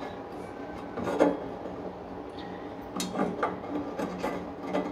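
Wrench scraping and clicking on metal as nuts are worked loose on the back of a steel wood stove, in short irregular bursts over a steady low hum.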